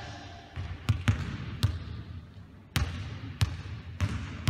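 Basketballs bouncing on a hardwood gym floor: about seven irregularly spaced thumps, each echoing briefly in the large hall.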